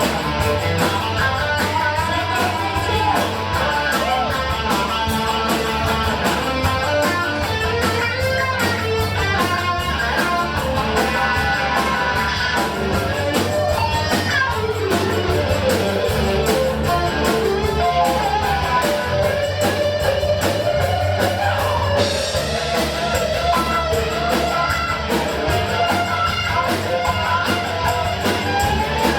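Rock music led by guitar, over sustained bass notes and a steady drum beat.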